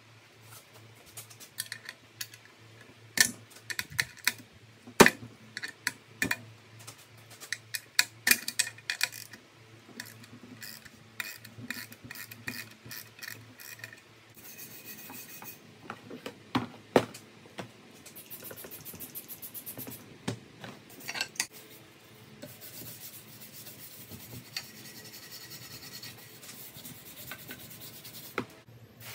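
Hand work on metal parts: an irregular run of sharp clicks and clinks, loudest in the first half, then steady rubbing and scrubbing over the last several seconds.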